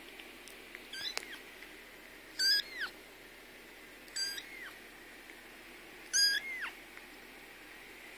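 Three-week-old silver tabby kitten mewing: four short, high-pitched mews, each rising then falling in pitch, spaced a second and a half to two seconds apart.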